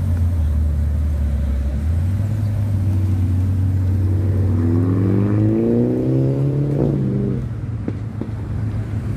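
Ferrari 812 Superfast's naturally aspirated V12 pulling away at low revs. Its note then climbs steadily for about three seconds, drops abruptly around seven seconds in, and settles lower and quieter as the car drives off.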